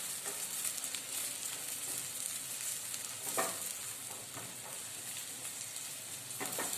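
Sliced onions sizzling in hot oil in a stainless steel pan, stirred with a wooden spatula, as they fry toward light golden.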